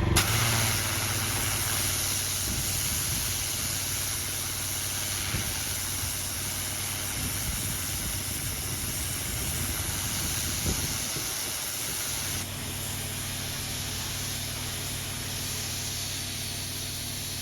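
Engine of a PWS Alpha A4 pressure washer running steadily, with a strong hiss over it that eases slightly about twelve seconds in.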